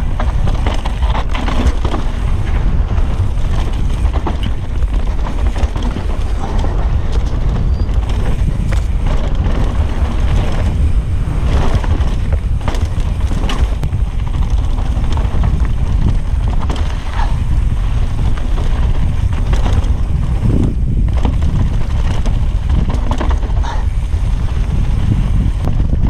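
Mountain bike ridden fast downhill on a dirt trail: steady wind buffeting on the camera microphone, with tyres on dirt and rock and repeated knocks and rattles as the bike goes over bumps and jumps.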